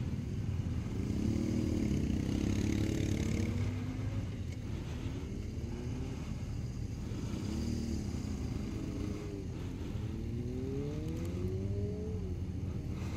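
Motorcycle engines running under a steady low rumble, revving up several times as the bikes pull away, with rising and falling pitch, heard from a rider's helmet-mounted camera.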